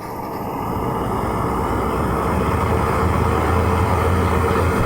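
Propane weed-burner torch firing into a homemade forge, a steady flame rush with a low rumble that grows louder over the first two seconds as the gas is turned up, then holds steady.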